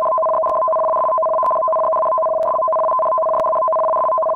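Electronic two-tone warning alarm sounding the tsunami warning: two steady pitches held together, loud and unbroken.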